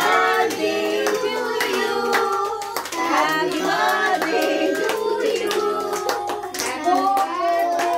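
A group of family voices singing a birthday song together, with hand clapping kept in time with the singing.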